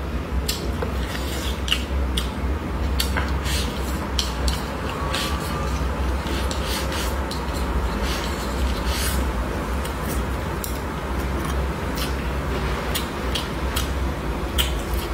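Close-miked eating: a person chewing and slurping stir-fried dried tofu strips with rice, with many short wet mouth clicks and chopsticks scraping the bowl, over a steady low hum. Near the end he sips from a glass of water.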